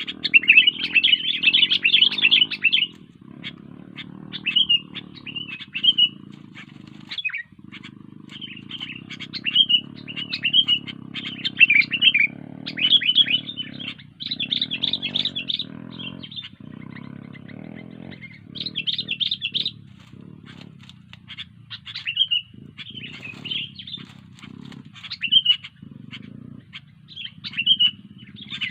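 Sooty-headed bulbul (kutilang) singing vigorously in repeated bursts of quick, chirpy warbled phrases, over a steady low hum.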